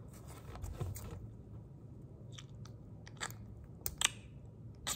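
Faint, scattered clicks of a Lego minifigure's plastic parts as it is handled and a piece is pulled off, with the loudest click about four seconds in.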